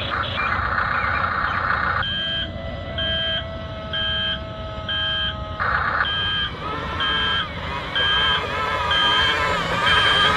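Electronic reversing beeper of a radio-controlled construction vehicle's sound module, starting about two seconds in and beeping about once every three-quarters of a second over a steady mechanical whir.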